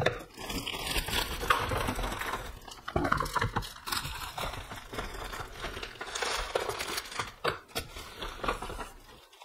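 Packaging crinkling and rustling as makeup items are dug out of a cardboard shipping box by hand, with a few small knocks of items being handled.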